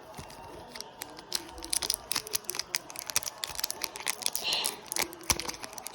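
Foil booster pack being handled and picked at to tear it open: many quick, irregular crinkles and clicks.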